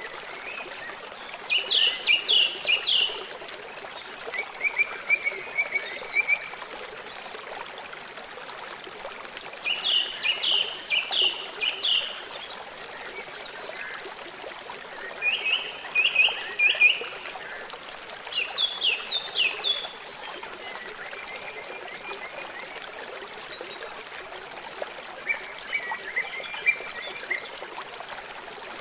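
A stream trickling steadily, with a bird repeatedly calling short bursts of quick high notes every few seconds.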